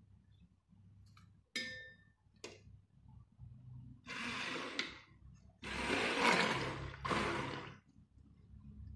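A metal clink against a stainless steel bowl, then a stick blender run in two bursts, the second longer and louder, blending oils and lye solution together for liquid castile soap.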